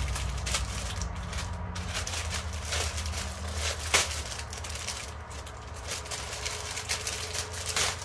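Plastic packaging crinkling and crackling as it is opened a little way from the microphone: a string of sharp crackles, with a louder snap about four seconds in, over a steady low hum.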